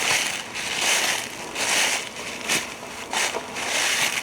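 Footsteps crunching through dry fallen leaves: a steady walking rhythm of about six crunchy steps, a little more than one a second.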